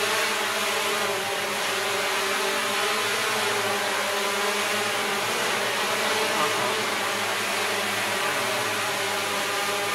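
Hexacopter drone flying, its six propellers and motors giving a steady multi-tone buzz that shifts slightly in pitch as it manoeuvres.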